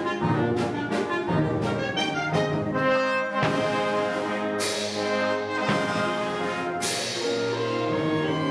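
An orchestra playing a lyrical waltz. A pulsing accompaniment gives way about three seconds in to long held chords, with two bright accents near the middle.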